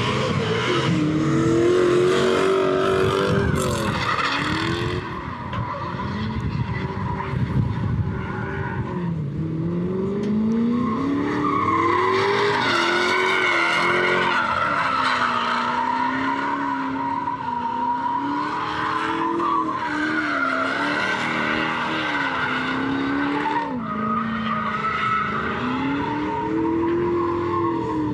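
Lexus SC400 drift car's engine revving up and down through a drift run, with tires squealing and skidding in long stretches: one in the middle and another later on.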